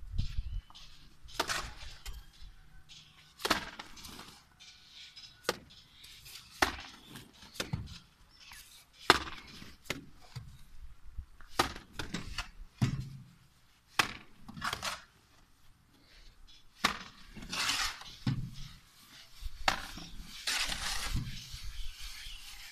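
Mason's trowel working cement mortar: sharp metal clinks and scrapes in a metal wheelbarrow and slaps of mortar thrown onto a concrete-block wall, in quick, irregular strokes about every second, with longer scrapes near the end.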